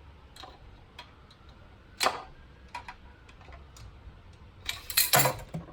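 Scattered light clicks and clinks of parts being handled in a car's engine bay, with one sharper click about two seconds in and a brief clatter near the end.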